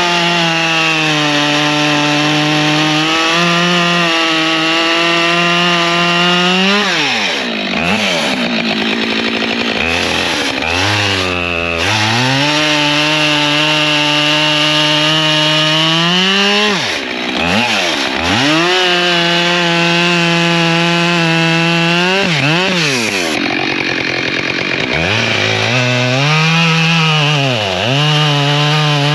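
Husqvarna 592 XP two-stroke chainsaw cutting firewood, held at high revs in the cut, with the revs dropping and climbing back again several times between cuts.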